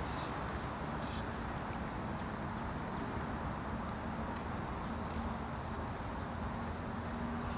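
Steady rushing outdoor background noise with a faint low hum, and a few faint, short, high chirps.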